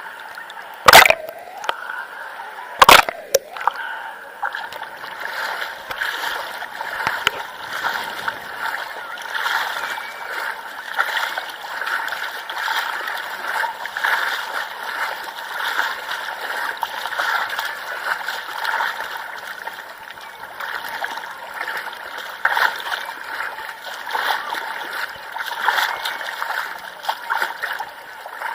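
Sea water splashing and sloshing around a camera held at the waterline, a continuous, choppy wash with no let-up. Two loud, sharp hits come about one and three seconds in.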